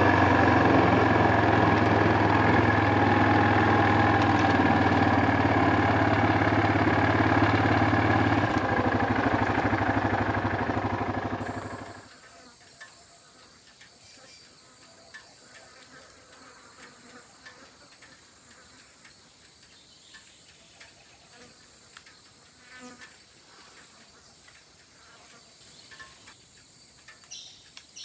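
Quad bike (ATV) engine running, then winding down and cutting off about twelve seconds in. Afterwards only faint insects and small scattered ticks remain.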